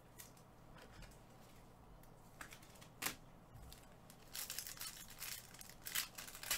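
Foil trading-card pack being opened by gloved hands: a few faint clicks, then from about four seconds in a quick run of wrapper crinkling and tearing.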